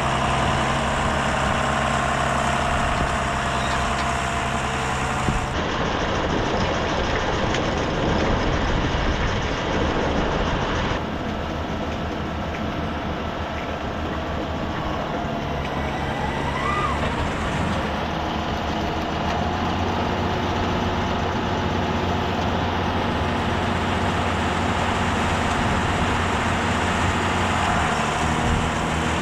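Heavy tractor diesel engines running steadily under load, with the mix changing abruptly at about five and eleven seconds in.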